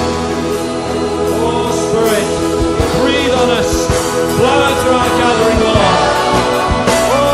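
Christian worship band music: several voices singing a melody over a full rock-style band.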